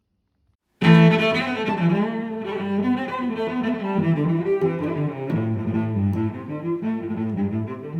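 Near silence, then background music starts suddenly about a second in and carries on with held, changing notes.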